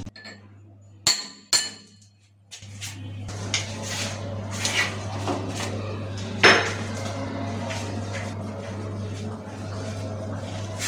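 Two sharp, ringing hammer blows about a second in, driving a wall plug into a drilled hole in a tiled wall, then a screwdriver turning a screw through a plastic cistern bracket into the wall: irregular scraping and creaking with one louder knock past the middle, over a steady low hum.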